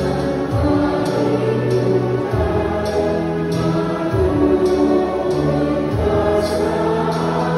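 Choir singing a slow hymn at Mass with accompaniment, in long held notes that change every second or two over steady bass notes.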